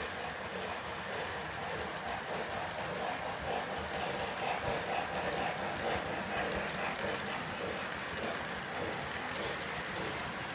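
Electric model train running on the layout's track, a steady rolling, humming and clattering that grows a little louder in the middle as it comes closer.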